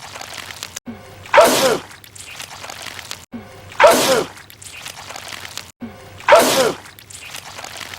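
A man's sneeze spraying goo, the same sneeze looped three times about every two and a half seconds. Each is a loud burst with a falling cry in it.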